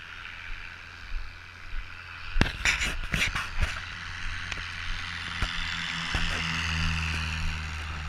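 A cluster of knocks and clatter from the camera being handled, then a motor scooter's small engine running steadily, its hum growing louder near the end.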